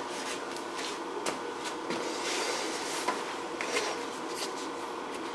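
Bench room tone: a steady faint hum with thin steady tones, scattered light clicks and rustles, and a brief swell of hiss about halfway through.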